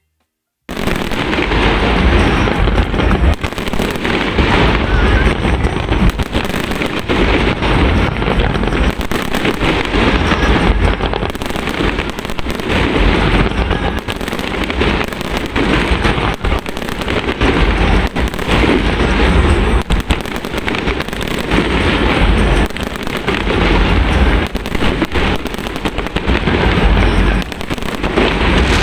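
Fireworks display: a loud, dense barrage of bangs and crackling with heavy low booms, starting abruptly about a second in and carrying on without a break.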